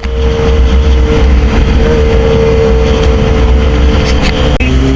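Yamaha XJ6's 600 cc inline-four running under way, a steady engine tone over heavy wind rumble on the helmet camera's microphone. The engine note drops suddenly near the end.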